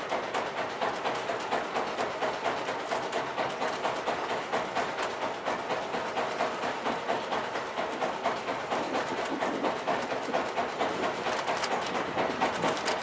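A boat's engine running steadily with a rapid, even knock, about four or five beats a second.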